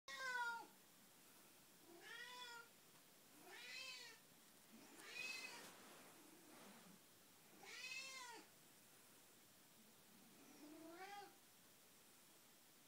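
An old black domestic cat meowing over and over: about six drawn-out meows a couple of seconds apart, each rising and then falling in pitch, the first the loudest. This is the repeated early-morning meowing of an elderly cat that the owner calls an Alzheimer's cat.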